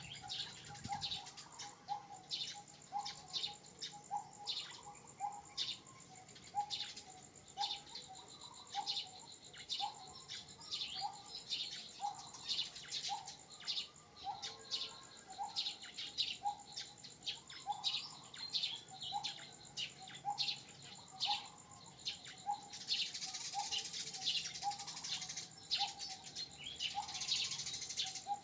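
Birds chirping and calling, with a lower short call repeating about once a second over a thin, steady high insect whine. Near the end a denser chatter of high chirps sets in.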